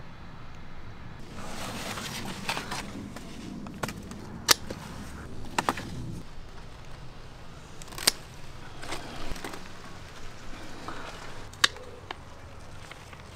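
Garden scissors snipping vegetable stems: several sharp snips a few seconds apart over rustling leaves and stalks.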